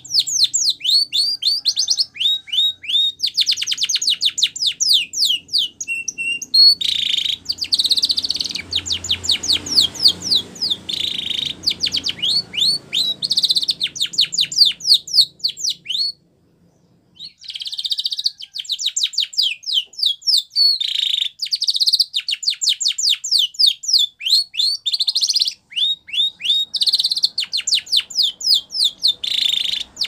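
Canary singing: long runs of fast trills made of rapidly repeated, high sweeping notes. A short pause breaks the song about halfway through.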